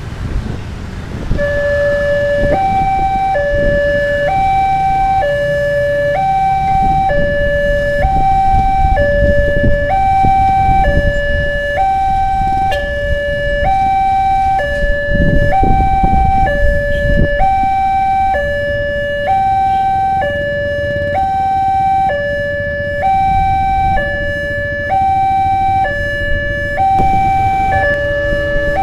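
Railway level-crossing warning alarm, starting about a second and a half in: an electronic two-tone signal that keeps alternating between a lower and a higher note, swapping a little more than once a second, warning that a train is approaching. Road traffic rumbles underneath.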